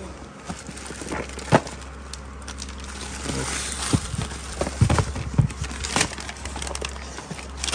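Packaged items being handled in a cardboard carton: irregular knocks and taps of small boxes against each other and the carton, with plastic bags rustling. The sharpest knocks come about a second and a half in and again between about four and six seconds in.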